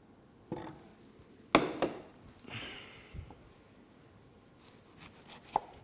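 A few knocks and clatters of kitchenware being handled and set down, the loudest about one and a half seconds in, with a soft low thump a little after three seconds and a light click near the end.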